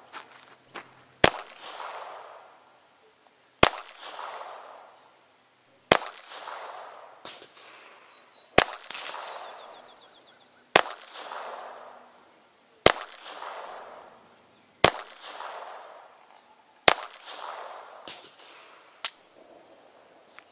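High Standard Sport King .22 LR semi-automatic pistol, fitted with its 4-inch barrel, firing nine shots in slow, even succession, about one every two seconds. Each sharp crack trails off for about a second.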